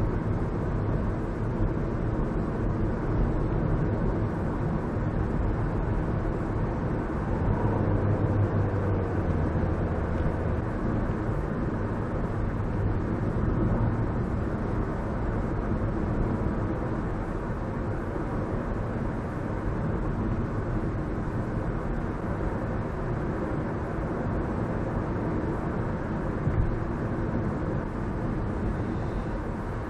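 Car driving along town streets, heard from inside the cabin: a steady mix of engine and tyre road noise whose low hum swells for a few seconds in the first half. There is a brief knock near the end.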